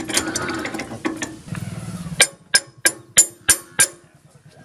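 Metal-on-metal handling as a steel rotary tiller blade is fitted onto the power tiller's rotor flange: about two seconds of scraping and rattling, then six sharp metallic clicks about a third of a second apart.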